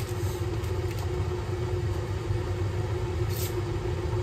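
A steady low mechanical hum with one held tone, like a running fan or motor, with a few faint light clicks early on and a brief high rustle about three and a half seconds in.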